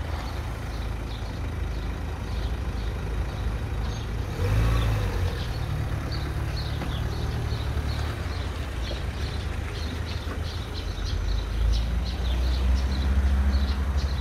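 Outdoor ambience: a steady low rumble that swells about four seconds in and again over the last few seconds, with short high chirps throughout.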